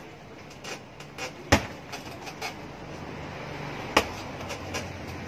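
Two kicks landing on a hanging heavy punching bag: two sharp smacks about two and a half seconds apart, with a few lighter knocks between them.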